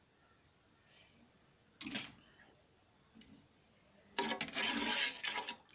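A spoon stirring thin rasam in a metal kadai. A short knock comes about two seconds in, then a second or so of scraping and swishing against the pan from about four seconds in.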